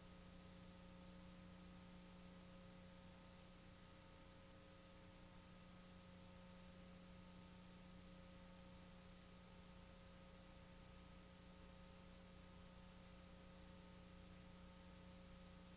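Near silence: a faint, steady electrical hum and hiss with no other sound.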